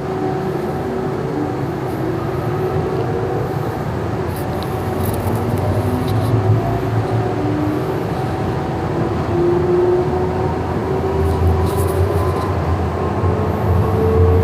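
Siemens S200 light rail vehicle under way, heard from inside the car: a steady rumble with thin motor tones that climb slowly in pitch, as when the train picks up speed. A few brief clicks and rattles come about a third of the way in and again near the end.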